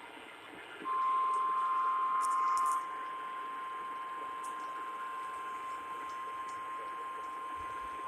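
NOAA Weather Radio 1050 Hz warning alarm tone: one long, steady, piercing beep starting about a second in, louder for its first two seconds. It is the alert tone that precedes a broadcast warning, heard over a radio receiver with a faint hiss underneath.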